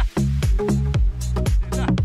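Background electronic music with a steady beat and bass.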